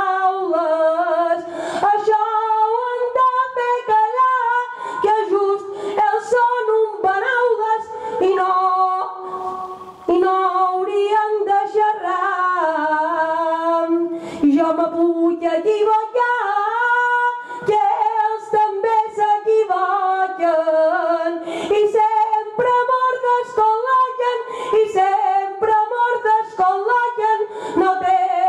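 A woman singing Mallorcan gloses, verses in Catalan sung unaccompanied to a traditional melody, in long drawn-out melodic phrases with brief breaks for breath.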